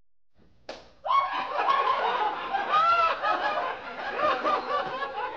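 Audience laughing, many voices at once, starting abruptly about a second in after a short near-silence and a single click.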